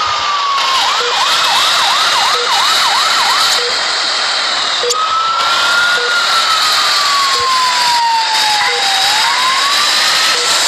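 Ambulance siren on a slow wail that rises and falls in pitch. Near the start it switches briefly to a fast yelp of about eight quick up-and-down sweeps. The wail restarts abruptly with a click about five seconds in, over a steady hiss.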